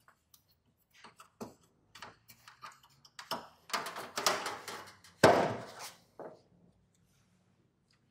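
Thin aluminum siding sheets handled on a plywood workbench. A few light taps and scrapes come first; then the sheet flexes and rattles as it is lifted, with a sharp clatter about five seconds in as it is set down.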